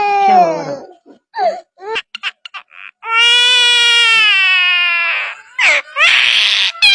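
A bird's long, wailing calls that sound like a crying baby, each drawn out with a slight fall in pitch, the second lasting about two seconds. Short clicks come between the calls, and a harsh, raspy burst follows near the end.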